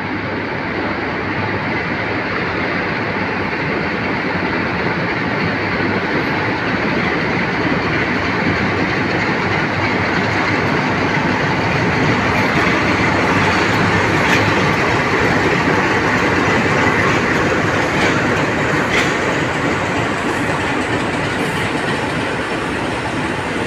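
A Class 47 diesel locomotive and its coaches rolling into a station, with wheels clicking over the rail joints. The steady train noise grows a little louder towards the middle.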